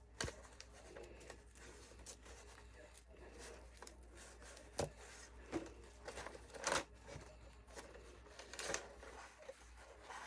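Light handling noises of a flower press and its pads: scattered soft clicks and rustling, the loudest about seven seconds in.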